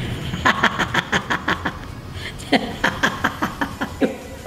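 Elderly woman laughing in two runs of quick, breathy chuckles, the second starting about halfway through.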